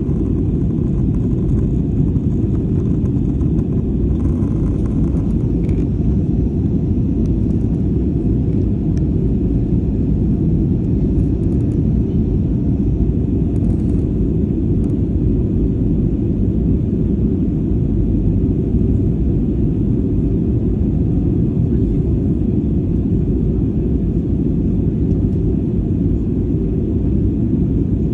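Steady low rumble of engine and airflow noise in the passenger cabin of an Airbus A320-family airliner in flight on its descent.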